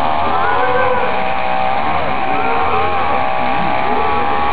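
Electric quadcopter motors and propellers whining, their pitch rising and falling over and over as the motors change speed in flight.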